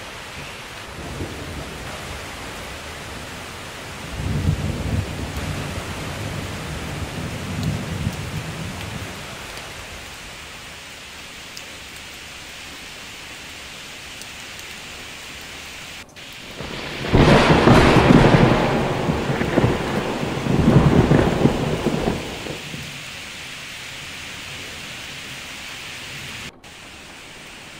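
Steady rain hissing, with two rolls of thunder. A low rumble starts about four seconds in and lasts several seconds; a louder, sharper crack and rumble comes about seventeen seconds in and dies away over about five seconds.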